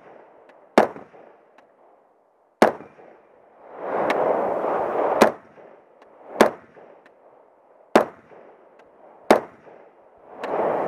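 Single aimed shots from an AR-15 in .300 Blackout: about seven sharp cracks spaced one to two seconds apart. Twice, a longer rushing noise fills the gap between shots.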